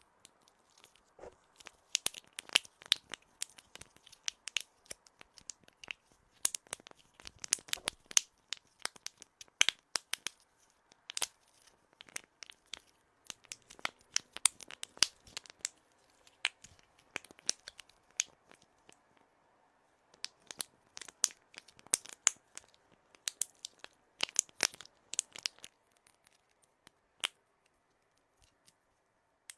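Close-miked ASMR handling sounds: irregular sharp clicks and crackles in quick clusters with short pauses, thinning out near the end.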